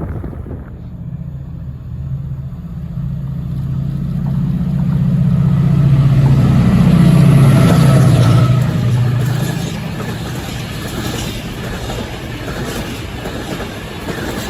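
Class 68 diesel locomotive's Caterpillar V16 engine working as it passes. It grows louder to a peak about seven seconds in, and its note drops as it goes by. It is followed by the clatter and clicks of the train's wheels on the track.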